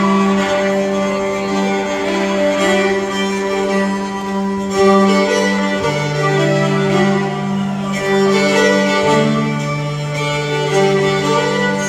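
Live instrumental string-band music: a fiddle playing the melody over upright bass and guitar, the bass holding long low notes that change twice.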